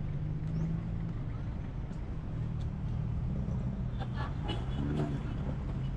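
A motor vehicle running: a steady low engine hum with road noise.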